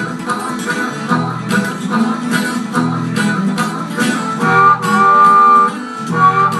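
Acoustic guitar strummed in a steady country rhythm with harmonica over it; a bit past halfway the harmonica holds a long, loud chord.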